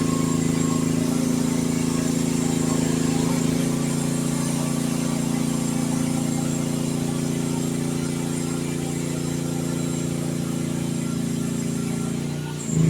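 Youtop YT15 mini excavator's engine running steadily at a constant speed, with a brief louder sound at the very end.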